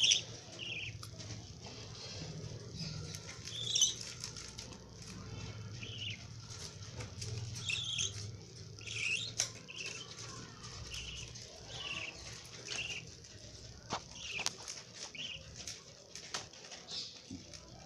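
Young lovebirds chirping in short calls every second or so, with wing fluttering and scattered small clicks and taps.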